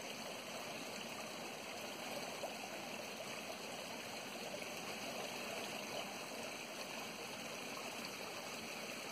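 Running water from a stream, a faint, even, unbroken rush.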